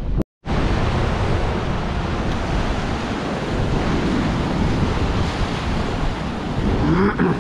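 Big ocean swell breaking as surf, with strong wind buffeting the microphone in a steady roar of noise.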